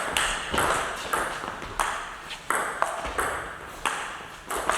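Table tennis rally: the celluloid ball clicks sharply and rapidly off the paddles and the table, roughly two to three hits a second.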